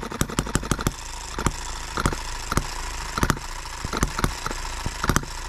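Small brass single-cylinder H73 model gasoline engine running. About a second in, while its carburetor is adjusted by hand, the rapid steady firing drops to slow, uneven pops about every half second. The owner takes the change for the carburetor drifting out of adjustment on its own.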